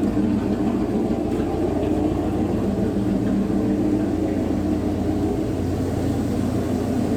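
V8 engine idling steadily, with an even low rumble that does not change in speed.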